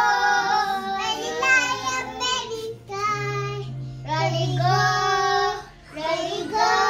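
A children's song playing on the TV: child voices singing over music.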